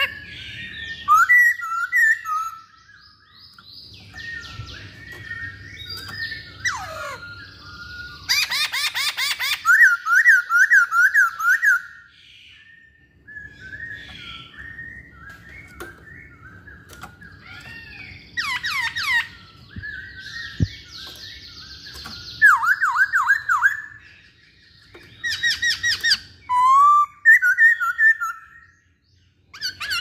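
Masked laughingthrush singing a loud, varied song. It mixes runs of looping whistled notes with harsh rattling chatters, in phrases of a second or two with short pauses between them.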